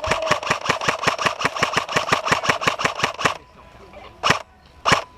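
Airsoft gun firing on full auto: a long, rapid burst of about eight shots a second that stops about three seconds in, followed by two single shots.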